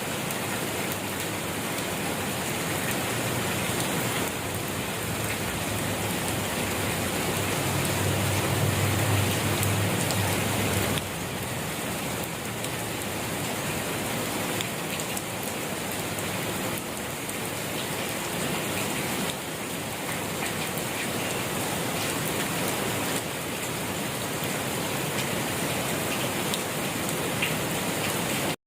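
Steady rain falling and pattering on surfaces, a dense even hiss. A low rumble sits underneath for a few seconds about a third of the way in, and the level jumps slightly a few times.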